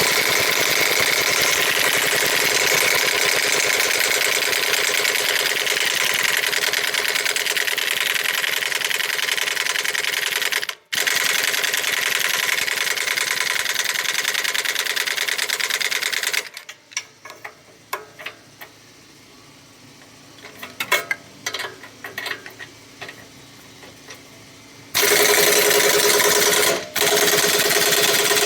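Impact wrench hammering on a rusted nut, in long bursts. A steady run of about sixteen seconds, let off briefly about eleven seconds in, is followed by a pause with a few clinks and knocks. Another burst comes near the end.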